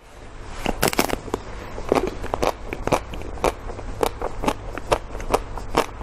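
Close-miked biting and chewing of a frozen ice cream bar: irregular crackling, crunching clicks, a few a second, over a low steady hum.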